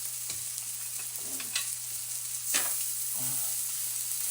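Shredded cabbage, carrot and egg sizzling in a hot pan as they are stir-fried, with a few short scrapes of the stirring utensil against the pan, the loudest about two and a half seconds in.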